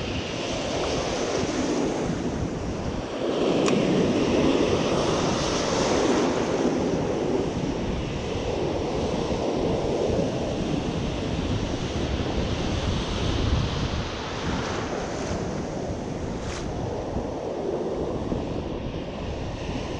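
Ocean surf breaking and washing up a sandy beach, with wind on the microphone; the wash swells about three seconds in and eases off after.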